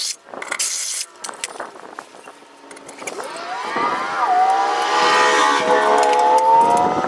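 An engine or motor running, its pitch dipping once and then climbing slowly and growing louder over the last three seconds. Before it, in the first second, there are a couple of short hissing, rasping bursts.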